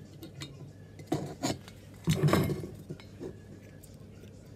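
Metal aerosol cans and a metal transfer adapter clinking and knocking together as the adapter is fitted onto the nozzle of a red Ironlak spray-paint can. There are a few light clicks, with the loudest knock about two seconds in.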